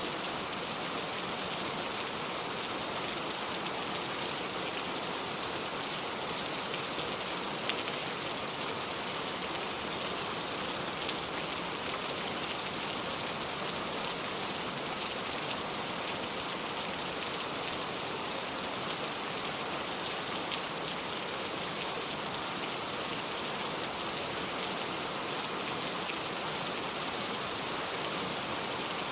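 Heavy rain pouring steadily, a dense even hiss of falling drops with an occasional sharper drop tick.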